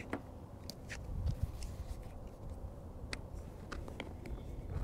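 Quiet handling noise: scattered faint clicks and rustles as ear muffs are put on and a rifle is brought to the shoulder, over a low rumble.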